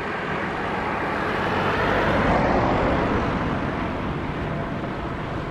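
Rushing vehicle noise that swells to a peak a couple of seconds in and then slowly eases.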